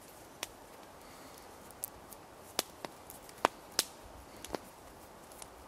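A series of sharp, irregular clicks and snaps, about seven of them spread over the few seconds, over a faint steady hiss.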